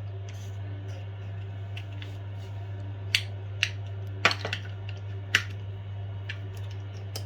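Small metallic clicks and taps of a screwdriver and a door lever handle's return spring being worked inside the lock mechanism, a few sharper ones in the middle, over a steady low hum.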